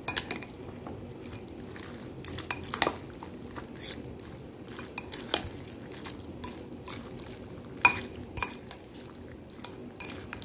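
Metal spoon and chopsticks clinking and scraping against a bowl as noodles are tossed and mixed. The clinks come at irregular moments, with louder knocks near the start, about three seconds in and about eight seconds in.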